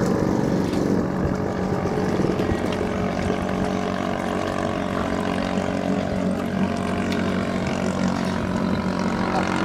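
Small racing boat's engine running at full speed, a steady drone that holds its pitch.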